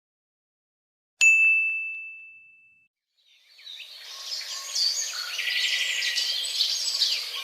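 A single high bell ding, struck once and fading over about a second and a half, then, from about three and a half seconds in, birds chirping and twittering with quick trills.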